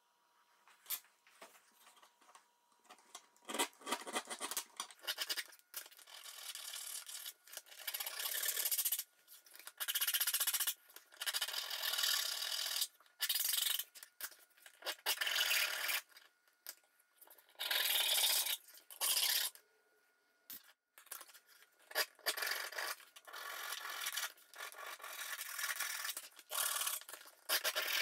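Small hand file scraping along the edges of 1/8-inch aluminium plate in repeated strokes with short pauses, filing off the CNC holding tabs. The filing starts about three seconds in.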